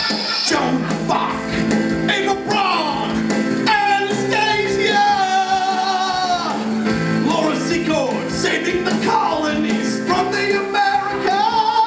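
A man singing loudly into a microphone over a rock-style backing track, holding one long note in the middle.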